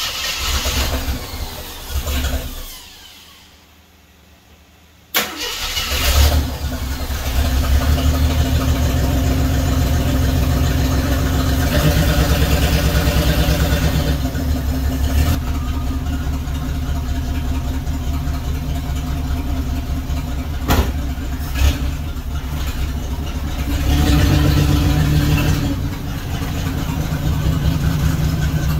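A 1976 AMC Gremlin engine, hard to start for lack of an accelerator pump and primed with a little fuel, is cranked and fires briefly, then dies. About five seconds in it catches and runs steadily, rising in revs a couple of times as the car is driven forward.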